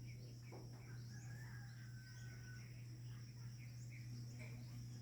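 Faint outdoor ambience: a steady high insect drone with short rising chirps repeating every second or so, and scattered bird calls over a steady low hum.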